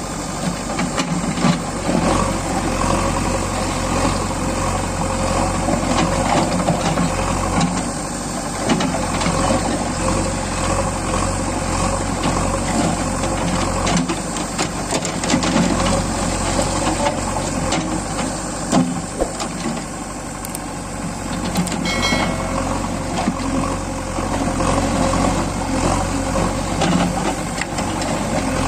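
JCB 3DX backhoe loader's diesel engine running steadily, with scattered short knocks and clanks from the machine at work.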